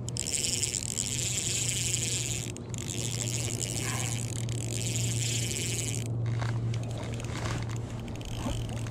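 Fishing reel whirring in a steady high hiss for about six seconds, with a short break near the start, as a large trout is played on the rod; it cuts off abruptly. A low steady hum runs underneath.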